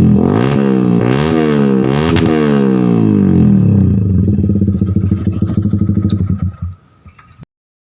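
Yamaha R15 V2 single-cylinder four-stroke engine breathing through a NOISE N1 short-model aftermarket muffler, revved in three quick blips that rise and fall. It then settles back to a pulsing idle and shuts off near the end.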